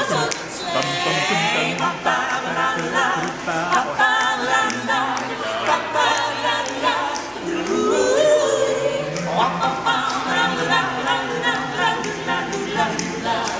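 Mixed a cappella group of carolers, men's and women's voices, singing a Christmas carol in harmony with no instruments, with a high voice wavering in vibrato about a second in and long held chords later on.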